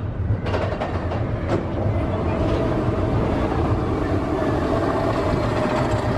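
Roller coaster train rumbling steadily along its track, with a few sharp clacks in the first second and a half.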